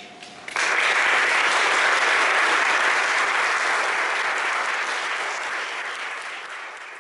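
Audience applauding, starting suddenly about half a second in and easing off slightly toward the end.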